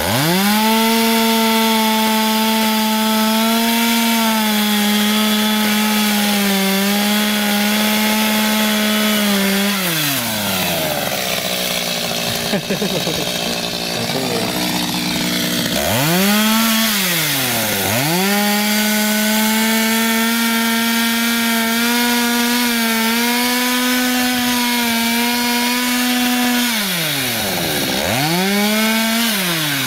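Petrol chainsaw cutting the tops off wooden bridge piles: the engine is held at high revs through a cut for about ten seconds, drops to idle, then revs up again for a second long cut. It drops back near the end and gives one short rev.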